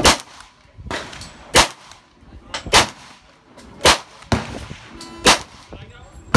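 Kriss Vector .45 ACP carbine fired one round at a time at a steady pace, about one shot a second, each sharp report ringing briefly afterwards.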